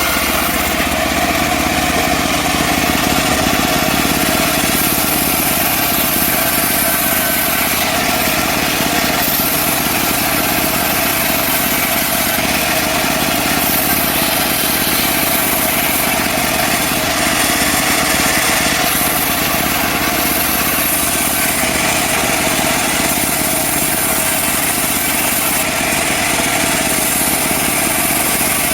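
Small petrol engine of a portable bandsaw sawmill running steadily, loud and unbroken throughout.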